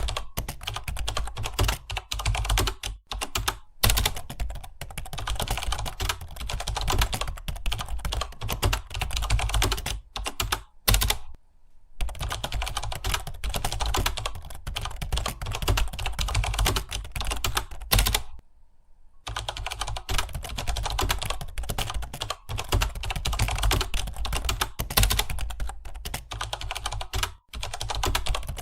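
Fast, continuous typing on a computer keyboard: a dense, uneven stream of keystrokes, stopping briefly twice, once near the middle and once about two-thirds of the way through.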